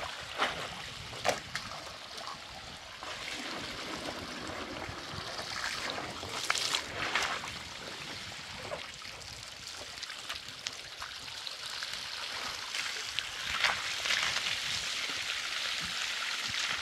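Water sloshing and trickling, with scattered clicks and a few louder splashes.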